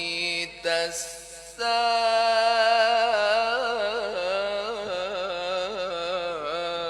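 Melodic Quran recitation by a solo male reciter in the mujawwad style. He sings the word 'alladhi', then, after a short breath, holds one long ornamented note whose pitch wavers and turns for about five seconds.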